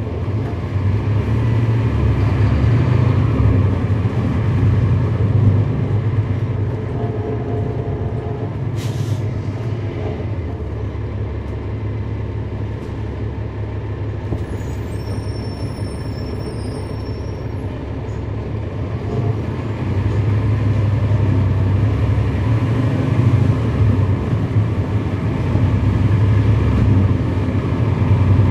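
The Cummins ISL9 inline-six diesel of a 2011 NABI 416.15 transit bus, heard from on board while under way. It pulls harder in the first few seconds, eases off through the middle and pulls harder again for the last several seconds. A brief hiss comes about nine seconds in, and short high tones sound around the middle.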